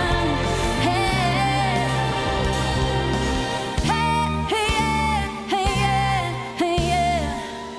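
Live pop song: a woman's lead vocal singing a wavering melody over a band, with the bass dropping out near the end.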